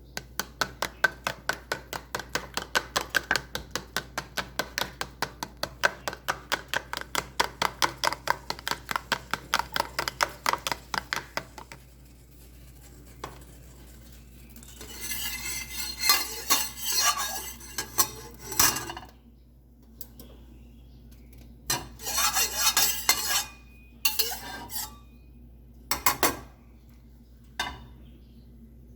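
Eggs being beaten in a bowl with a fork or spoon: rapid, evenly paced clinks of metal on the bowl, about three to four a second, for roughly twelve seconds. After a short pause there are several shorter, irregular bursts of clattering and scraping.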